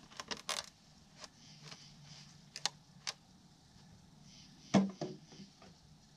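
Handling noise from a plastic funnel and fluid bottle: a few light clicks and knocks, with one louder knock just under five seconds in, over a faint low hum.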